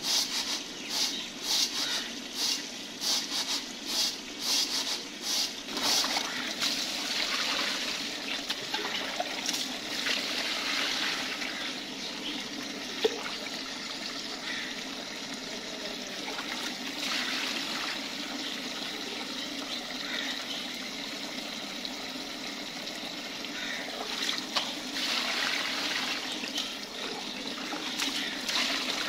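Rice being washed by hand in a steel tray: rhythmic swishing about twice a second for the first several seconds, then steady trickling and splashing of water as it is poured and drained. One sharp tap about halfway through.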